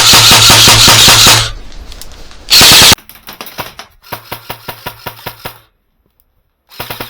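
Airsoft guns firing rapid full-auto bursts. A loud, dense burst at the start and a short loud blast about two and a half seconds in, then quieter strings of rapid clicks that stop for about a second before another string near the end.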